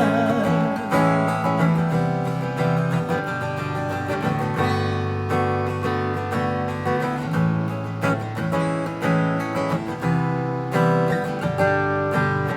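Acoustic guitar strummed in an instrumental passage of a song, with held low notes underneath and chords struck roughly once a second.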